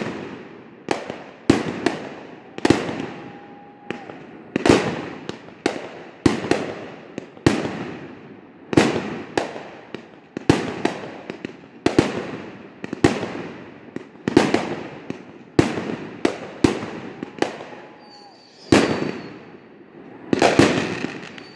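Aerial fireworks going off in a steady string of sharp bangs, about one a second, each trailing off in a long echo across the water.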